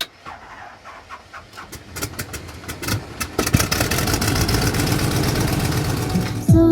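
FPV drone's electric motors and propellers spinning up, a buzzing whir with crackling clicks that grows steadily louder over several seconds. Music with a beat comes in right at the end.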